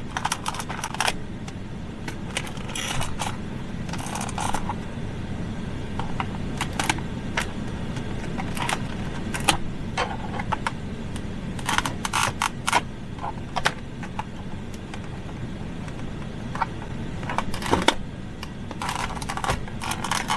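Hard plastic trim and latch pieces of a pickup's center console lid clicking, rattling and scraping as they are pried and worked by hand without a trim tool, in irregular bursts over a steady low hum.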